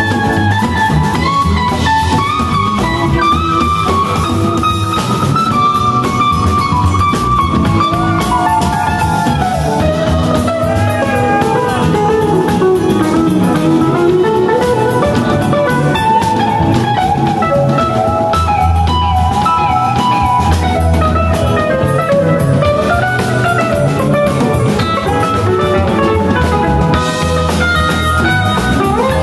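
Live rock band playing an instrumental passage on electric guitar, bass, keyboard and drum kit. A lead melody winds down and back up through the middle.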